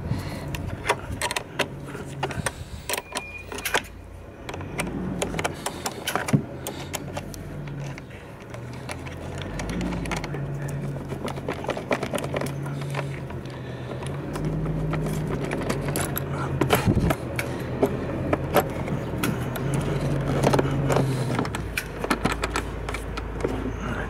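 Metal clicks and clinks of a wrench loosening a car battery's negative terminal clamp, and the clamp being worked off the battery post. A low hum comes and goes underneath.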